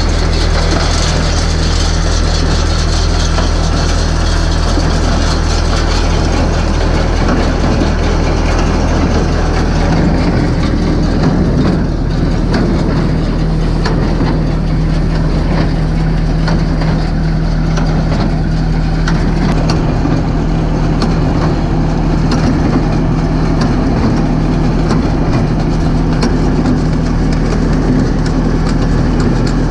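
Massey Ferguson MF 254S tractor engine running steadily under load, driving a Welger WSA 350 low-pressure baler through the PTO as it picks up and bales hay.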